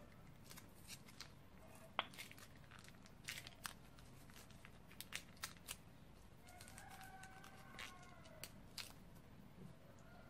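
Slime being squeezed out of a plastic piping bag: faint scattered clicks and crackles, the sharpest about two seconds in.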